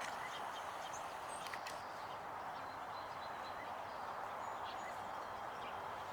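Steady outdoor background hiss with a few faint, brief, high bird chirps.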